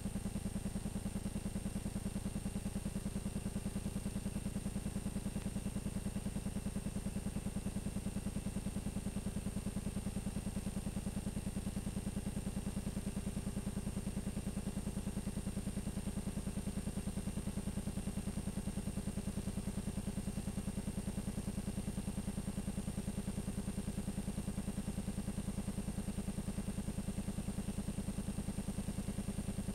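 Steady low electrical hum and buzz with a faint high whine, unchanging throughout: the noise of a blank stretch of videotape after the broadcast has ended.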